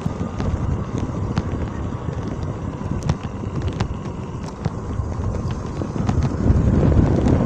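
Small motorcycle's engine running while riding, with wind buffeting the microphone. The low rumble grows louder about a second before the end, and sharp ticks sound here and there.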